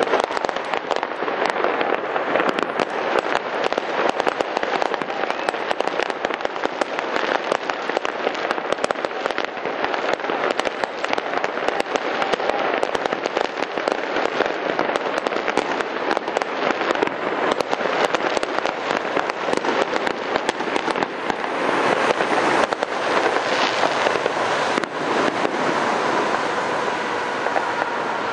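Fireworks display: a rapid, continuous barrage of bursts and crackling, with no break.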